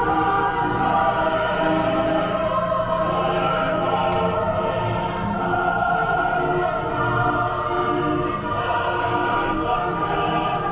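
Choral background music: a choir singing long held notes.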